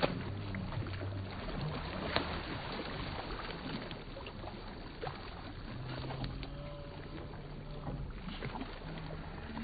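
Kayak paddle strokes dipping and splashing in lake water, with scattered small splashes and knocks over a steady wash of water and wind noise, and a faint low hum at times.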